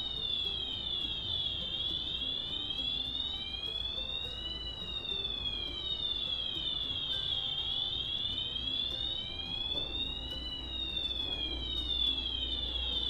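Arduino-driven piezo buzzer sounding a wailing siren: a high, thin tone slowly rising and falling, each climb and each drop taking about three seconds.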